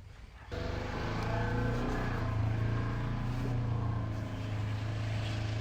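Wood-Mizer LT15WIDE sawmill's engine running steadily, cutting in abruptly about half a second in.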